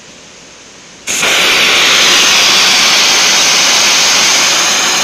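Hand-held water mist gun opened about a second in: a sudden, loud, steady hiss of water spraying out as a fine mist.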